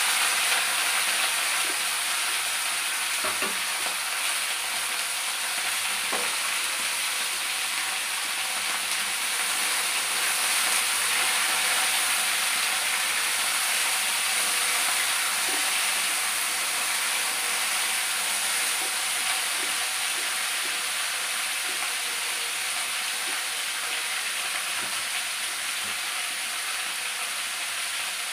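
Cauliflower and potato pieces sizzling steadily as they fry in a steel kadai, with a wooden spatula now and then scraping and knocking against the pan, most clearly about 3 and 6 seconds in.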